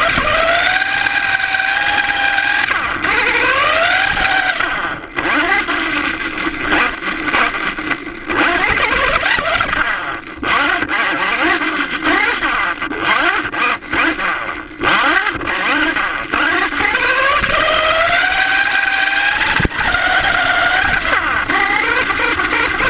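FTX radio-controlled car's motor whining as it is driven, its pitch climbing and falling again and again as the car accelerates and eases off.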